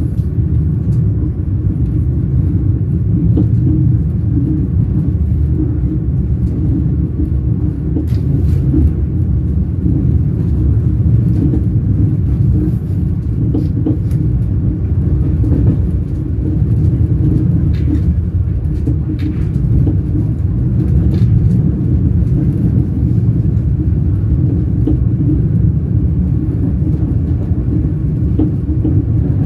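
Train wheels rolling on the rails: a steady low rumble, with a few faint, brief higher squeaks or clicks in the middle stretch.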